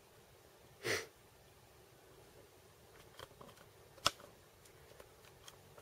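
A person sniffing once, briefly, about a second in, then a few faint clicks and taps, the sharpest just after four seconds.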